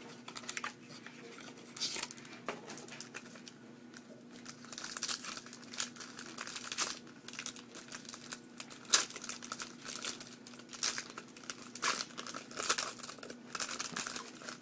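Wrapper of a Bowman Sterling football card pack being torn open and crinkled, in a run of irregular crackles and sharp clicks.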